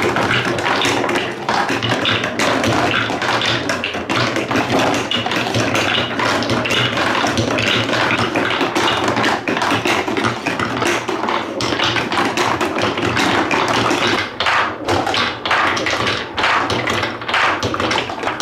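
Many small balls clattering down TrixTrack marble-run wave slopes in a dense, rapid stream of clicks and taps, thinning to more separate taps near the end.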